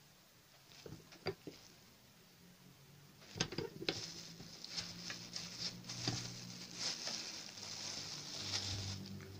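Clear plastic bag crinkling and rustling as it is handled and lifted, starting about three seconds in. A few light knocks come about a second in.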